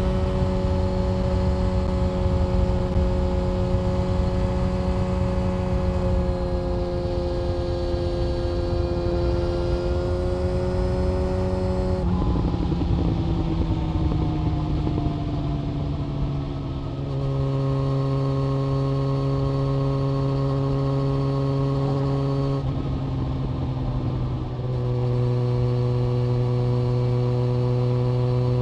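Inline-four motorcycle engine and exhaust running at a steady speed. Partway through, the engine note falls gradually for a few seconds as the bike slows. It then holds a steady lower note, broken by a couple of abrupt jumps.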